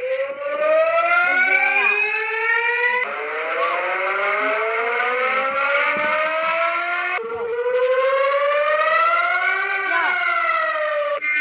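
Emergency alert alarm siren tone, a stack of pitches rising slowly and jumping abruptly back down about every three to four seconds.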